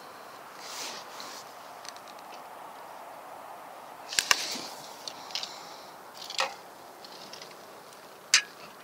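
Scattered sharp clicks and knocks from a carbon fishing pole and its tackle being handled, the loudest knock near the end.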